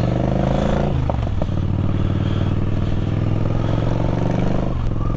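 Yamaha XV950 Bolt's air-cooled V-twin engine running under way, its note shifting about a second in, with a few light clicks, and shifting again near the end.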